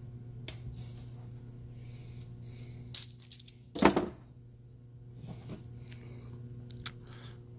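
Sharp metallic clicks and clinks of pliers and the pulled-out gearbox detent sleeve being handled against metal. A loud cluster of clinks and a heavier knock come about three to four seconds in, with a single click near the end.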